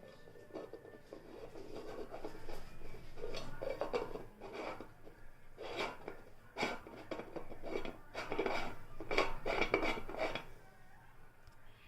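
Irregular scraping, rubbing and light clinking of hard parts being handled, loudest near the end.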